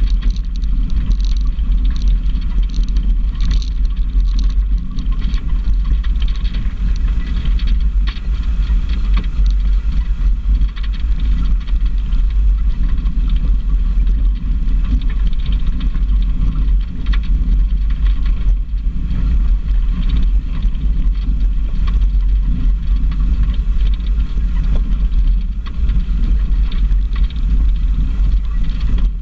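Off-road vehicle driving along a rough gravel track: a steady, loud, deep engine and road rumble with frequent small knocks and crunches from stones under the tyres.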